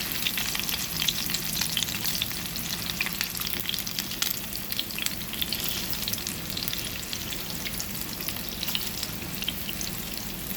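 Meat and zucchini patties frying in hot oil in a frying pan: a steady sizzle with a dense crackle of spitting oil.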